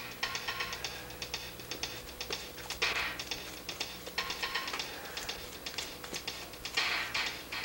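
Rapid, irregular light clicks and clatter with a few bursts of hiss, over a steady low hum.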